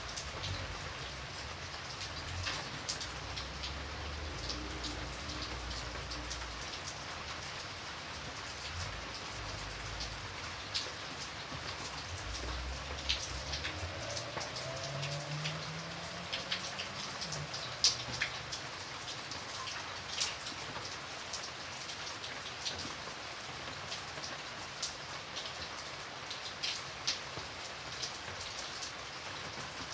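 Steady rain falling, individual drops hitting a surface close by as sharp ticks over an even hiss, with a faint low rumble underneath during the first half.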